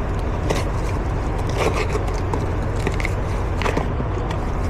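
Short metallic scrapes and clicks from hand work on a worn, wallered-out serpentine-belt idler pulley, whose bearing is sticky and loose. A steady low hum runs underneath.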